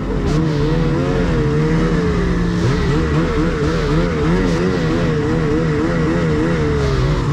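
Snowmobile engine heard from on board the sled, running hard as it rides along the trail, its pitch rising and falling repeatedly as the throttle is worked.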